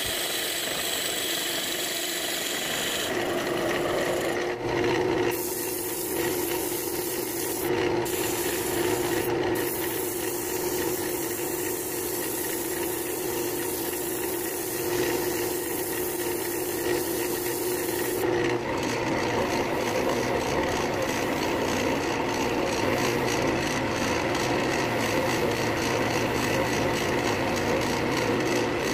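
Wood lathe running with a steady hum while the spinning cherry-wood tealight holder is worked. First a drill bit bores into it, then sandpaper is held against it, then friction polish is rubbed on with a paper towel, each giving a rough rubbing, scraping noise over the motor.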